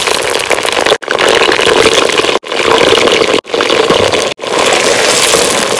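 Whole peeled potatoes frying in hot ghee in a clay pot: a loud, steady sizzle, cut off for an instant four times.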